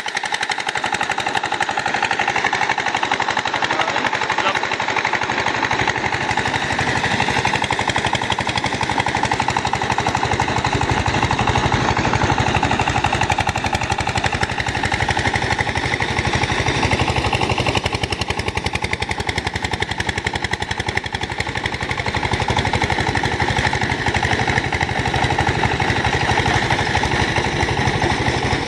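Rice threshing machine running steadily: a fast, even engine chug under a broad whirring hiss that holds throughout.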